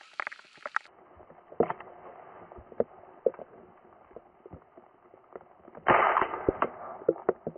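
A single shotgun shot about six seconds in, sudden and the loudest sound here, with a short noisy tail after it. Before it come scattered faint clicks and ticks.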